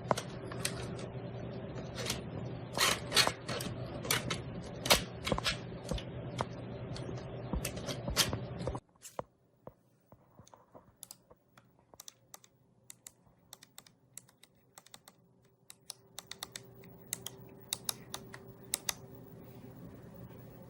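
Computer keyboard typing: a run of quick key clicks over a low steady hum. About nine seconds in the hum stops suddenly and the clicks go on softer and more spread out.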